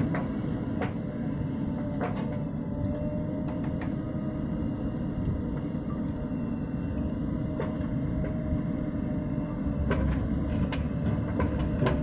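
Steady low diesel-engine rumble from a JCB 3DX backhoe loader working as it digs soil, with a few faint knocks.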